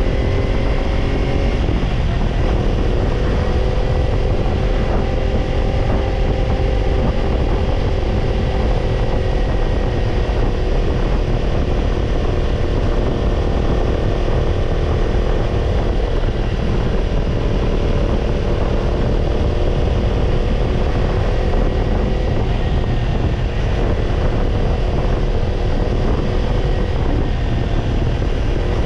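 Kawasaki Ninja 250's parallel-twin engine through a BEET Nassert Evolution Type II black titanium slip-on muffler, running under way at a fairly steady speed. Its pitch drops slightly about two seconds in and then holds nearly level.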